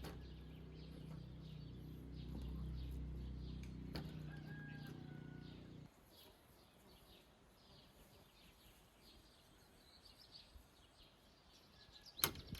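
Faint birdsong, scattered chirps with one clear whistled call, over a low steady hum that cuts off suddenly about six seconds in. A few sharp clicks come near the end.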